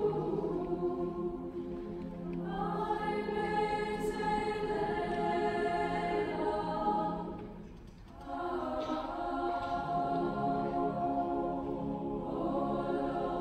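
Large mixed choir singing slow, sustained chords, dropping away briefly a little past halfway before coming back in with the next phrase.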